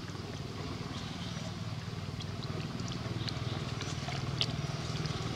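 An engine running steadily with a low hum that slowly grows louder, with a few faint clicks over it.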